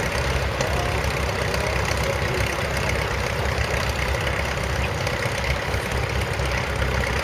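Crawler tractor engine running steadily with a low, even throb.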